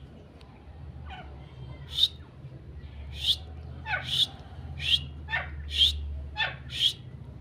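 A pair of grey francolins (teetar) calling: a quick series of loud, sharp, high calls, some with a falling lower note, starting about two seconds in and coming faster toward the end.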